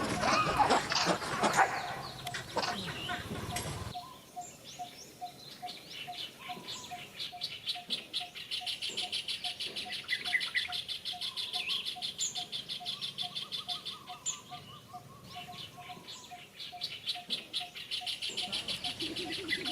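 Outdoor ambience of birds and insects: a steady series of short low pips, about three a second, over a dense high insect-like buzzing and a few scattered bird chirps. It is preceded by a loud jumble of shrill, pitch-sliding animal calls that cuts off abruptly about four seconds in.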